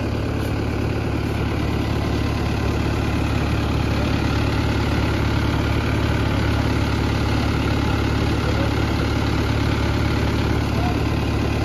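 New Mahindra tractor's diesel engine idling steadily with a low, even hum.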